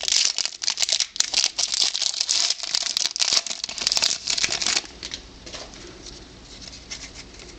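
Crinkling and tearing of a trading-card pack wrapper as it is torn open, a dense crackling for about five seconds that then drops to faint handling noise.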